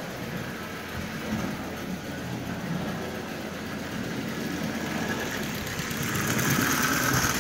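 Marx 666 toy steam locomotive running around the layout, its electric motor whirring and its wheels rumbling on the metal track. The sound grows louder about six seconds in as the locomotive passes close by.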